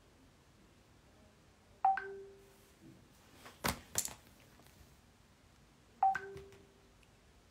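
An electronic alert tone sounds twice, about four seconds apart. Each is a short bright blip followed by a lower held note. Between them come a few sharp clicks.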